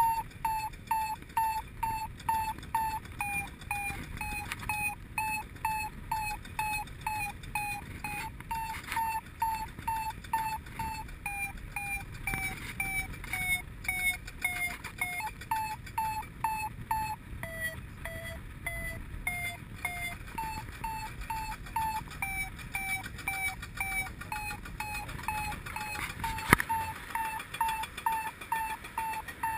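Paragliding variometer beeping, about two and a half short beeps a second, its pitch sinking and rising again: the interrupted beep tells the pilot the glider is climbing, with the pitch following the strength of the lift. Wind rushes on the microphone underneath, and a single sharp click sounds near the end.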